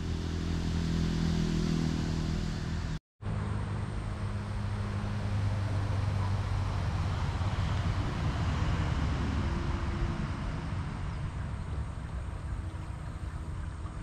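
An engine running steadily with a low hum, over a hiss of outdoor noise, broken by a short gap about three seconds in.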